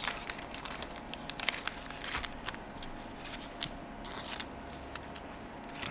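Light, scattered clicks and crinkles of trading cards and a card-pack wrapper being handled.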